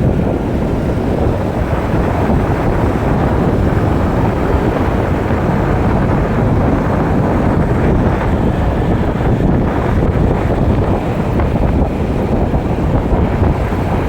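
Wind buffeting the microphone: a loud, steady rumbling noise, heaviest in the low end, with no distinct events.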